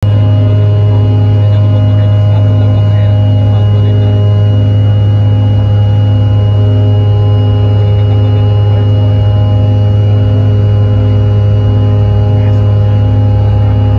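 Cabin sound of a CRJ-900 taxiing, its rear-mounted GE CF34 turbofans at low power: a loud steady low hum with several steady whining tones above it, and a faint tone pulsing about one and a half times a second.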